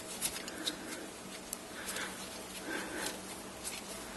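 Quarter-inch nut driver backing out a small screw from the metal bracket of a radio's dial-light diffuser: faint scraping with a few light clicks.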